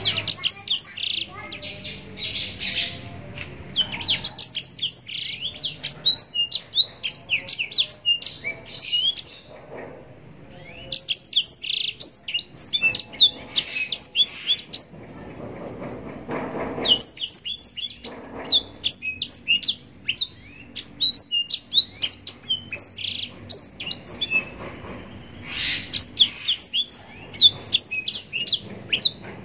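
Black-throated canary (blackthroat) singing long, fast phrases of high, quickly falling notes. The song breaks off briefly three times, about a third of the way in, around the middle, and near the end.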